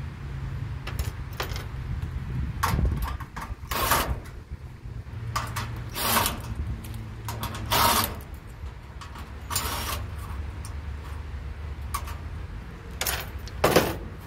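Sheet-metal panel and screws of a gas clothes dryer being handled and removed: several short metallic scrapes and clinks at irregular intervals over a steady low hum.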